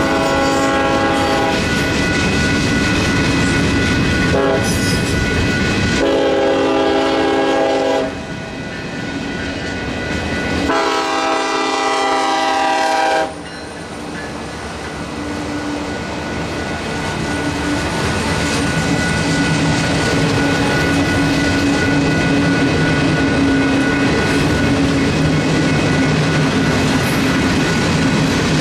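Freight locomotive horn sounding four blasts for the grade crossing, the last ending about 13 seconds in, over the rumble and clickety-clack of freight car wheels on the rails. After the horn stops, a steady diesel engine drone carries on under the wheel clatter as the locomotive and its train pass.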